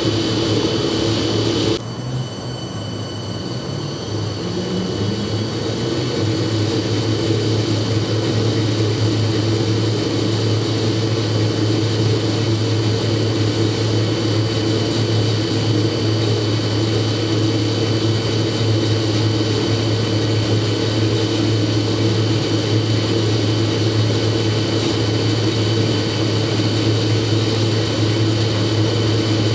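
Ransome heavy-duty turning-roll driver's AC variable-speed drive motor and gearing running with a steady hum and a thin high whine. About two seconds in the sound drops suddenly, then a short rising tone is heard and the hum builds back up over the next few seconds.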